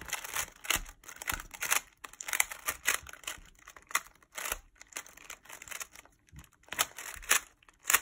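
A GAN 3x3 speed cube being scrambled by hand: quick, irregular runs of plastic layers clicking and rasping as they turn, with short pauses between runs.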